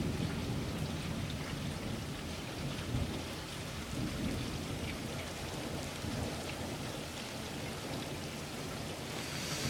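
Steady rain falling in a thunderstorm, with a low rumble of thunder dying away over the first couple of seconds.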